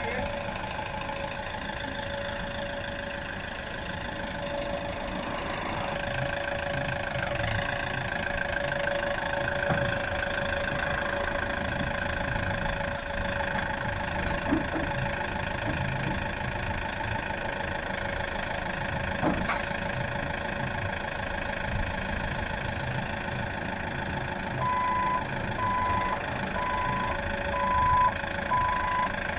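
Delivery truck's engine idling steadily. Near the end a warning beeper starts, beeping about once a second.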